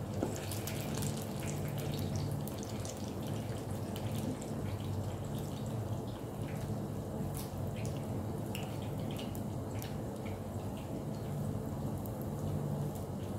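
Breaded potato-and-cheese croquettes deep-frying in hot oil in a small pot: steady sizzling with many scattered crackles and pops, over a low steady hum.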